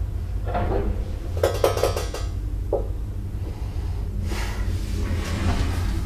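Old swing-door lift running: a steady low hum, with metallic clinks and rattles, a cluster of them about a second and a half in.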